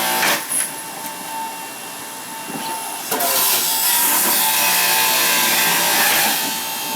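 Electric juicer motor running with a steady whine while beet is pushed through it. The noise grows louder and harsher in the first half-second and again from about three seconds in until near the end, as the beet is ground.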